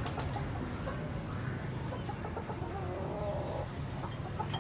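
Bird calls of a clucking kind, short wavering notes in the middle, with a few sharp clicks near the start, over a steady low hum.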